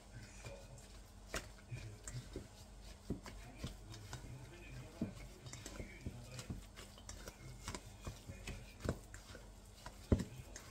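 Metal utensil stirring and scraping a thick semolina and coconut mixture in a stainless steel bowl, with irregular clicks and knocks of metal against the bowl and a sharper knock near the end.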